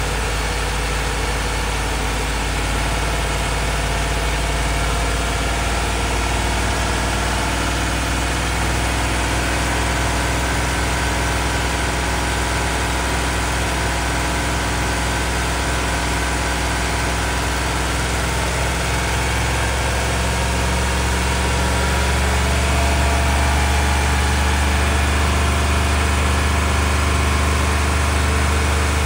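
Warm Ford 7.3-litre gasoline pushrod V8 running steadily above idle, then stepping up to a higher engine speed about twenty seconds in and holding there.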